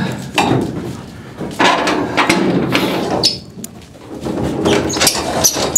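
Knocks, thumps and rattling from a metal stock trailer and its gates while goats are moved, in three bursts of clatter.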